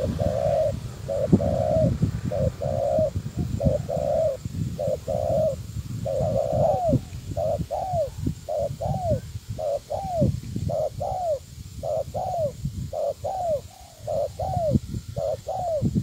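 Spotted dove cooing in a long run of notes, about two a second, each rising and then falling in pitch. A low rumble runs underneath.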